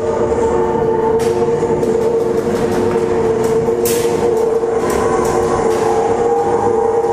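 A loud, steady mechanical hum with a fixed tone, broken by scattered sharp cracks of airsoft gunfire, the strongest about four seconds in.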